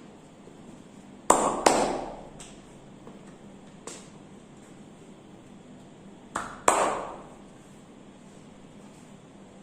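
Sharp hand slaps of a masseur striking during a massage, in two quick pairs about five seconds apart, each slap ringing briefly; a fainter tap falls between them.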